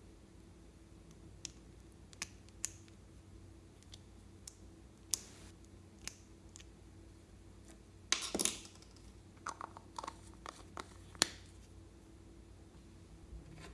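A small metal spatula scrapes lip balm out of a plastic jar and taps against the jar and a glass bowl, making scattered light clicks and scrapes. A longer scrape comes about eight seconds in, followed by a few short clinks.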